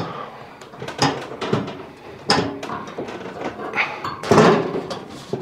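Sheet-metal rear panel and drum assembly of a Logik tumble dryer being shifted and lined up by hand: a run of short knocks, clicks and scrapes of metal and plastic, the loudest a little over four seconds in.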